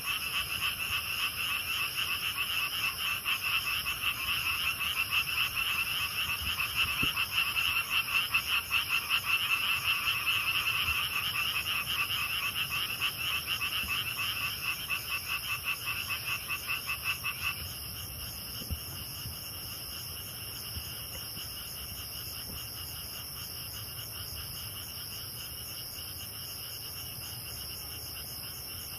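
Night chorus of frogs giving rapid, pulsing croaks over a steady high-pitched trilling of grass insects. The frogs stop abruptly about two-thirds of the way through, leaving only the insects trilling.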